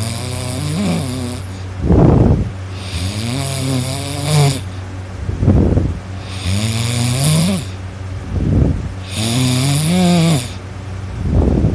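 A sleeping person snoring loudly in a regular rhythm, about one breath every three seconds. Each short, rough snore alternates with a longer wavering, pitched sound with an airy hiss.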